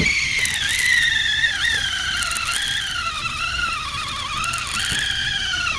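Spinning reel's drag screaming in one continuous whine that wavers up and down in pitch as a big hooked fish pulls line off the spool.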